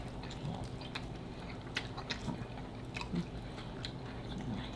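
Two people biting and chewing slices of BBQ pulled pork and bacon pizza close to the microphone: irregular small mouth clicks scattered through, over a faint steady low hum.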